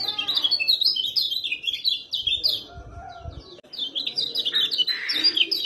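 Kecial kuning (yellow white-eye) singing a rapid twittering string of short high chirps, in two bursts with a pause of about a second between them.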